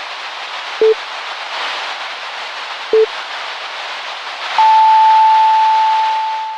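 Electronic beeps over a steady static hiss: two short low beeps about two seconds apart, then a louder, higher, long steady tone that fades out near the end.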